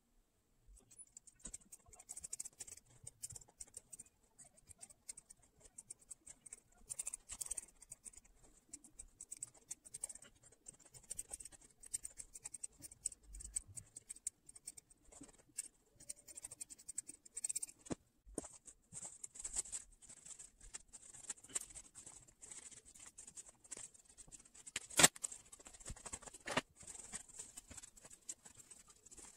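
Faint rustling and scratching of cotton fabric being handled as a sewn cloth doll is turned right side out, with a few sharp clicks in the second half.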